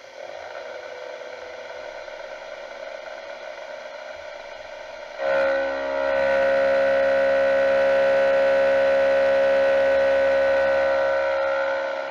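CNC mill spindle running with flood coolant spraying, then about five seconds in the face mill bites into the aluminium plate. From there a loud, steady ringing tone holds through the cut, easing off near the end.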